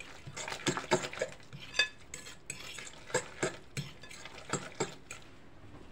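Grated raw potato mixed with egg being stirred by hand in a glass bowl: a string of irregular soft wet strokes and small clicks as a pinch of salt is worked in.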